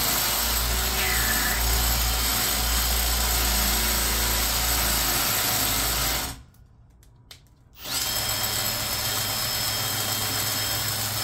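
Kobalt Gen 1 cordless hammer drill in hammer mode, running and hammering as it tries to bore a half-inch hole in brick. It stops about six seconds in and starts again about a second and a half later with a steady whine. The drill is too small for the half-inch bit and is making almost no headway.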